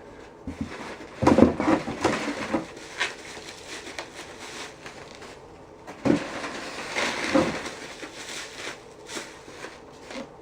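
Plastic shaker cups and their packaging being handled and unpacked: irregular rustling and clattering in two bouts, one about a second in and another near the middle.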